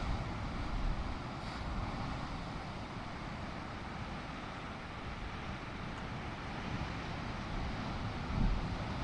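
Wind buffeting the microphone over a steady rushing background, with low gusts at the start and again about eight seconds in.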